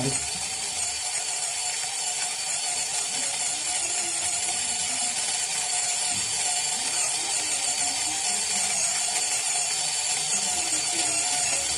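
Electric burr coffee grinder with a cast-aluminium body grinding beans at a fine setting: a steady mechanical grinding sound, not very loud.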